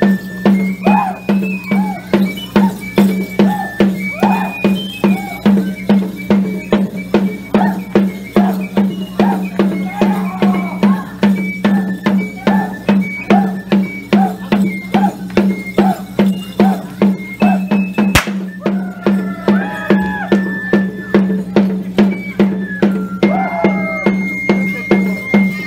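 Traditional dance music of a high flute melody over a steady drum beat of about two strokes a second, with bells clanking in time.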